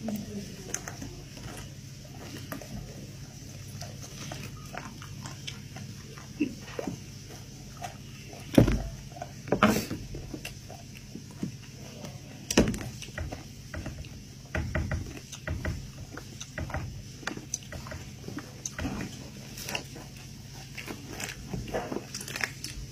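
Eating a boiled sheep's head: wet chewing and mouth noises, with a large knife scraping and knocking against the skull and the wooden tray as meat is cut away. Scattered sharp knocks and clicks, the loudest around nine and twelve seconds in, over a steady low hum.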